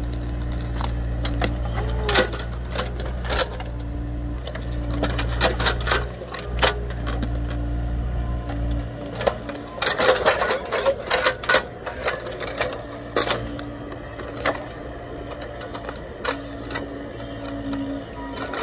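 Mini excavator's diesel engine running with a hydraulic whine that comes and goes as the bucket digs at a large tree stump still held by its roots, with knocks and cracks of roots and soil. The deep engine drone drops away about nine seconds in, followed by a cluster of knocks and cracks.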